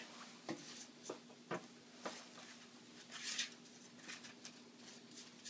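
Faint light taps and a soft swish of a foam brush spreading wood glue along the edge of a board.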